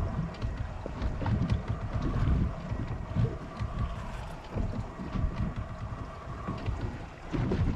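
Wind buffeting the microphone in uneven low gusts, over a faint steady hum.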